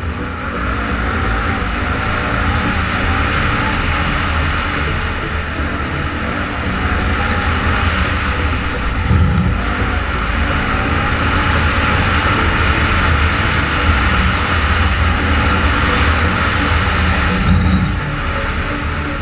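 Quad (ATV) engine running, its pitch rising and falling as the throttle changes, over a heavy continuous rumble, with a couple of brief low thumps.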